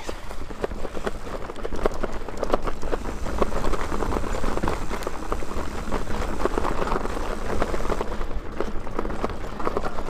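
Mountain bike ridden fast down a dirt singletrack trail: the tyres rolling over dirt and roots and the bike rattling, a steady rush dense with small knocks and clicks.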